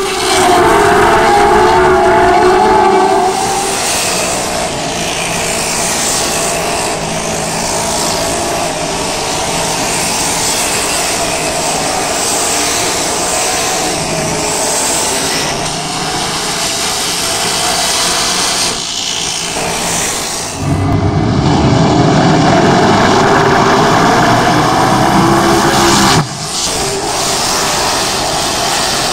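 Dirt modified race cars' V8 engines running at speed around a dirt oval, several cars together in a loud, continuous drone, with sudden jumps in level about three seconds in, about two-thirds of the way through and near the end.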